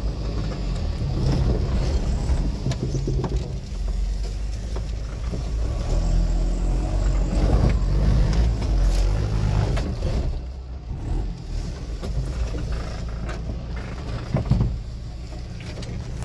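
Off-road 4x4's engine running as the vehicle drives a rough trail, the engine sound swelling and easing with the terrain, with occasional knocks and a sharper one near the end.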